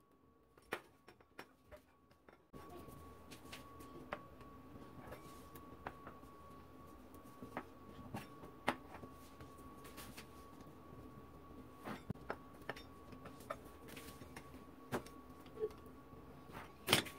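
Faint scattered clicks and soft taps of a pastry wheel cutting through stacked thin samosa pastry sheets, with a sharper click near the end. A steady faint hum comes in about two and a half seconds in.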